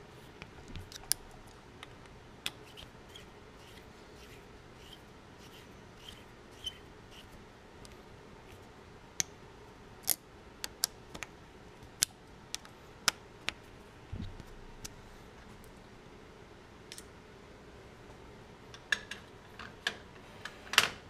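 Scattered sharp metallic clicks and taps from the lathe's tool post as its screws are tightened with a hex key and tools are handled, over a faint steady hum.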